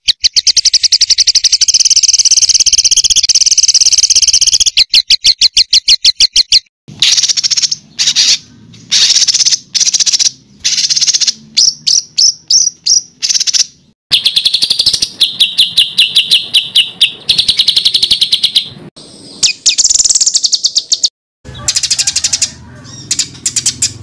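Songbird song of the harsh, rapid 'tembakan' kind used as masteran training material: loud, high-pitched strings of fast repeated sharp notes in phrases of varying length, with short pauses between them and a brief break near the end.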